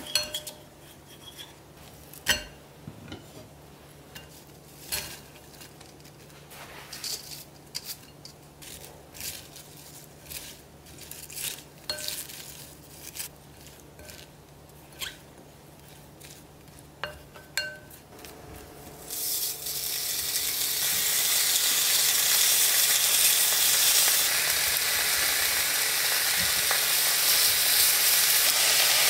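A spatula tapping and scraping against a glass mixing bowl in scattered clinks while stonecrop is tossed in its seasoning. About two-thirds of the way in, pork neck steaks start frying in a hot pan with a loud, steady sizzle that becomes the dominant sound.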